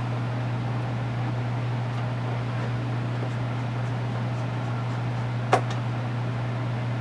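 A steady low hum with a faint even hiss, broken by a single sharp click about five and a half seconds in.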